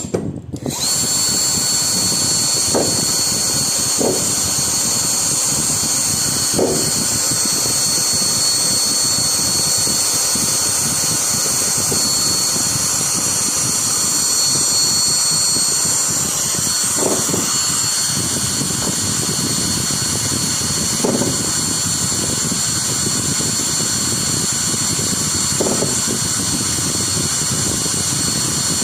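A small high-speed power tool starts up about a second in and runs steadily with a high whine, cleaning a copper pump part before welding. A few faint, brief knocks sound under the whine.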